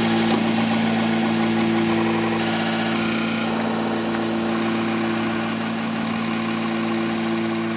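Electronic drone music: several low tones held steadily under a busy, shifting upper layer.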